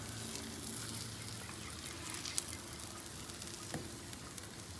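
Cornmeal-dredged grit cakes sizzling in oil on a hot flat-top griddle, a steady low hiss with fine crackle and a couple of small clicks near the middle.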